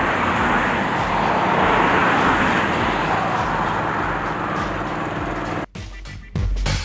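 Steady rumble and rush of a passenger train running, which cuts off abruptly about three-quarters of the way in; music with a beat starts just before the end.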